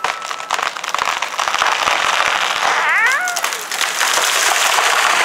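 A large conifer falling after being cut: its branches rush and swish, with dense crackling and snapping of limbs that builds up. A short rising-and-falling call cuts through about three seconds in.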